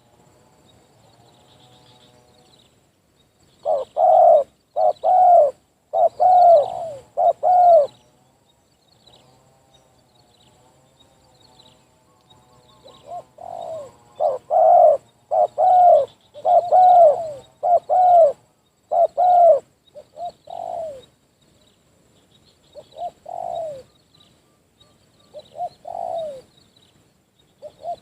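Spotted dove cooing: a run of loud, evenly spaced coos about four seconds in, a longer run around the middle, then a few single coos. Fainter cooing and faint high bird chirps fill the gaps.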